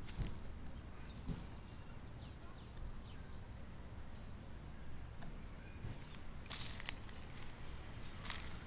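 Outdoor park ambience: a steady low rumble with faint high bird chirps in the first few seconds, and a brief crackling rustle about two thirds through.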